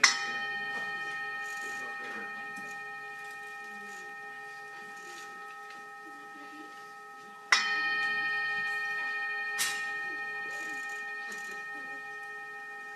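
A bell struck twice, about seven and a half seconds apart, each strike ringing on in a long, slowly fading tone. A short sharp tick sounds about two seconds after the second strike.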